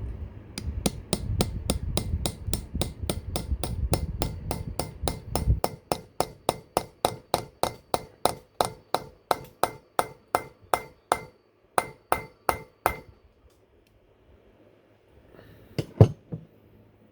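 Hammer blows on metal in a steady series, about three a second, each ringing briefly, with one short pause before they stop about thirteen seconds in. A low rumble runs under the first few seconds, and two louder, sharper blows come near the end.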